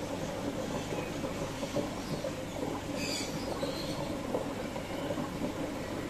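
Aquarium filter and air pump running with a steady low hum and rumble, and a brief high squeak about three seconds in.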